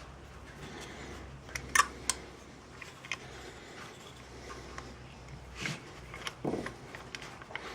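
A few light clicks and a dull knock over a faint, steady low hum.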